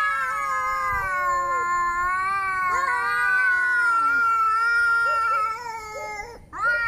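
Angry cat yowling: one long, slowly wavering, drawn-out wail that fades out about five and a half seconds in, then a new yowl starts just before the end.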